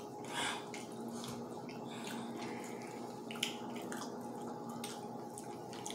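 Eating sounds: breaded fried chicken torn apart by hand and chewed, with irregular small clicks and crackles from the crust and the mouth, over a steady background hum.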